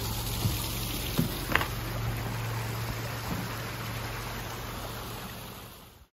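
Water pouring from a pipe into a small stream, a steady rush, with a few knocks of footsteps on a wooden footbridge in the first seconds. The sound cuts off abruptly near the end.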